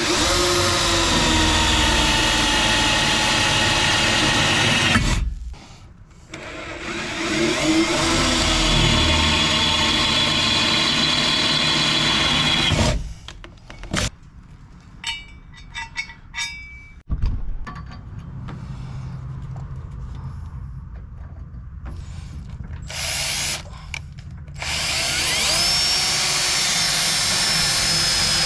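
Handheld power drill running in two long bursts, its pitch sagging under load as it bores. Then a quieter spell of clicks and handling, and near the end the motor spins up again with a rising whine.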